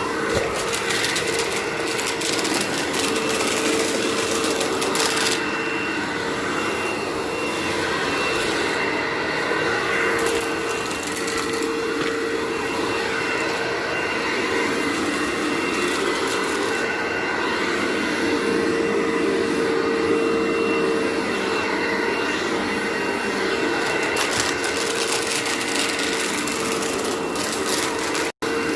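Vacuum cleaner running steadily on carpet: a constant rush of air with a steady motor whine. It breaks off for an instant near the end.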